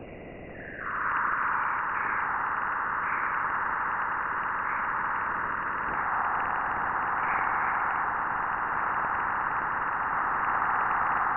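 Sonified recording of electromagnetic waves from Jupiter's magnetosphere picked up by the Juno probe: a steady rushing hiss that swells up about a second in, with small rises and falls.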